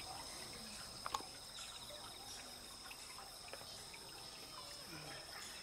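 Steady high-pitched insect chorus, such as crickets, with a short pulsing chirp now and then. A sharp click about a second in, and a fainter one midway.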